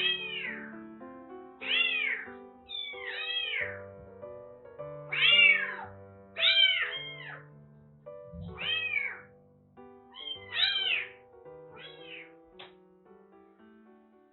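A young kitten meowing over and over, about nine high, arching cries spaced roughly a second apart.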